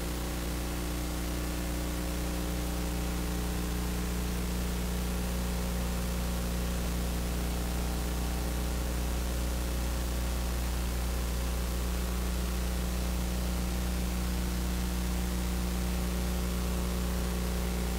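Steady electrical mains hum with a constant hiss from an idle audio feed; no music or speech.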